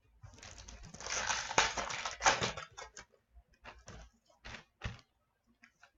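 Foil trading card pack wrapper crinkling as it is torn open, followed by several short sharp clicks as the cards are handled.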